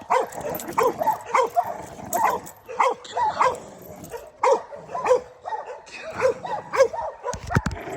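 Pit bulls barking repeatedly, about two sharp barks a second, with a short low thump near the end.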